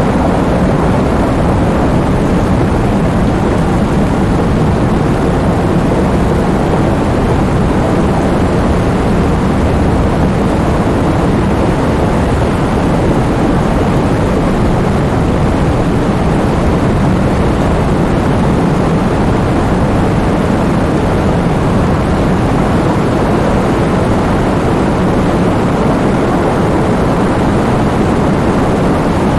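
Heavy rain falling steadily, a dense, unbroken rushing noise weighted toward the low end.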